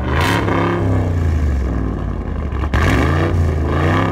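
Ram Rebel TRX concept truck's supercharged V8 revving through its side-dump exhaust: a deep, loud rumble blipped up near the start and again a little past halfway.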